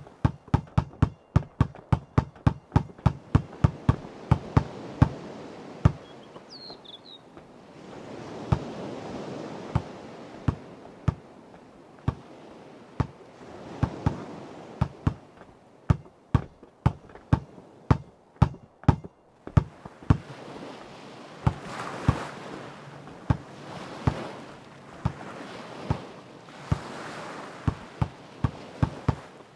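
A basketball is dribbled over and over on hard ground, in quick even bounces at first and more sparsely later. Sea waves wash in and out every few seconds, and a bird gives a short high chirp about seven seconds in.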